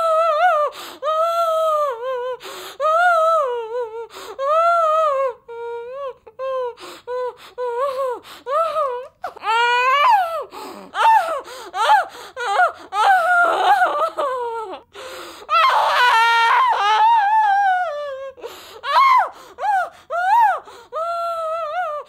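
A person crying and wailing in high-pitched cries that rise and fall, one after another with short breaks between. The cries turn rougher and more strained, close to screaming, about two-thirds of the way through.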